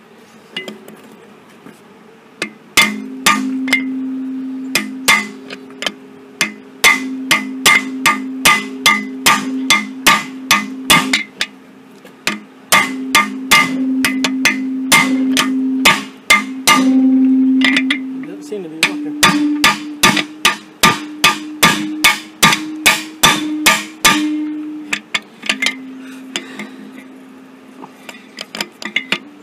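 Hammer blows on a pole set against a seized piston in a Ford 400 V8 engine block, struck over and over, often about two a second, with a steady metallic ringing between strikes and a couple of short pauses. The piston is rusted in and not moving.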